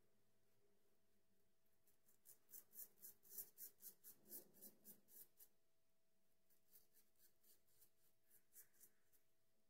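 Faint scraping of a shavette razor with a Treet blade cutting through lathered stubble under the jaw and on the neck, in quick short strokes of about five a second for a few seconds, then fainter, sparser strokes later on.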